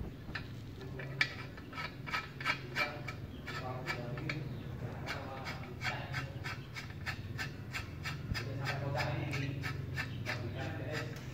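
Light metallic clicking and scraping as an aluminium sprinkler nozzle is fitted and turned by hand on the end of a steel barrel tube, the clicks coming about three or four a second from the middle on, over a low steady hum.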